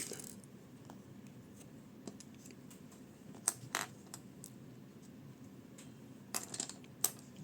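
Light clicks of small plastic and metal pencil parts as a Uni Kurutoga Dive mechanical pencil is taken apart and its pieces set down. Two clicks come a little past halfway and a few more near the end, with quiet between.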